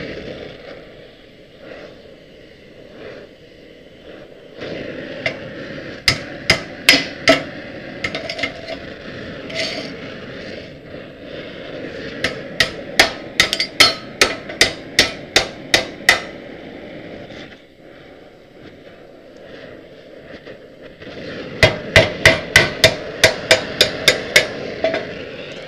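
Hammer striking the steel frame of a drift trike in three runs of rapid blows, about three to four a second, with a steady hiss between them.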